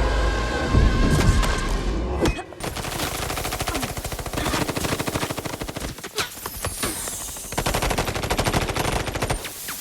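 Rapid automatic gunfire in a film action soundtrack: long runs of fast, evenly spaced shots that start about two and a half seconds in and break off briefly near the middle. Before the shooting starts there is a loud, low, rumbling passage that cuts off abruptly.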